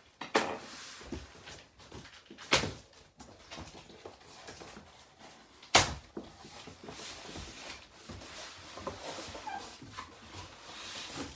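Cardboard boxes scraping and rubbing as a boxed prop is slid out of its cardboard shipping carton. Three sharp knocks break the scraping, and the loudest comes about six seconds in.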